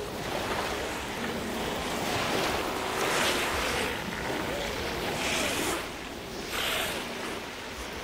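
Ocean surf breaking on the shore, the wash swelling in several surges. Faint sliding calls of South American sea lions sound underneath.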